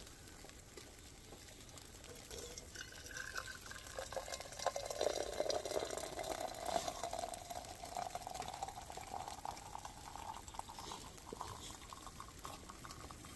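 Hot coffee poured from a coffee pot into a mug, the pitch of the stream rising slowly as the mug fills.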